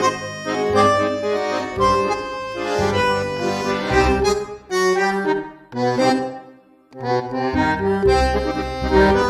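Background instrumental music: a bouncy melody with frequent note changes and a brief break about six and a half seconds in.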